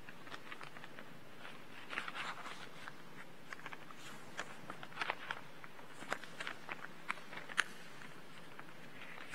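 Scattered faint clicks and taps at irregular intervals over a steady low hiss, with small clusters about two seconds in and around five seconds in.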